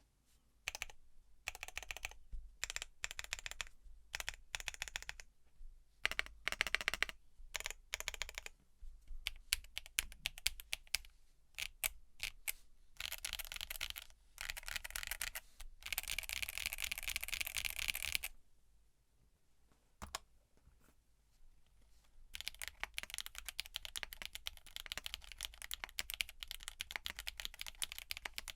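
Typing on a TX66 sandwich-mount custom mechanical keyboard with factory-lubed Geon Black tactile switches, an aluminium plate, case foam and CMK BOW keycaps, with a clacky sound. First come separate keystrokes and short runs, then fast continuous typing; about two-thirds of the way in there is a pause of a few seconds broken by a few single taps, and then steady fast typing resumes.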